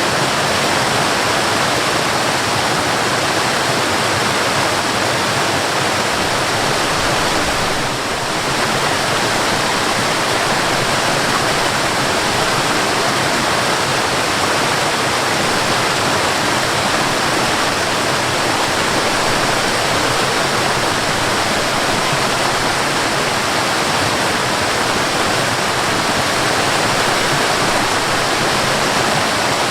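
Waterfall: a steady, full rush of falling water with a brief slight dip about eight seconds in.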